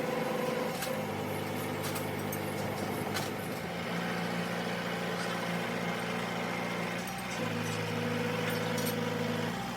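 An engine running steadily, its speed shifting a few times so the pitch steps up or down, with a few light clicks and knocks over it.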